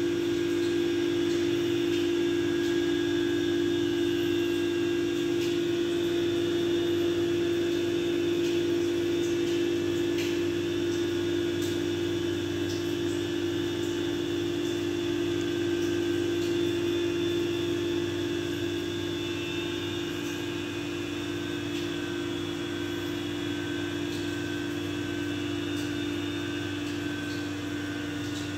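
A steady mechanical hum with a strong, constant low drone, like a running appliance such as an air conditioner or fan. It drops slightly in level about two-thirds of the way through.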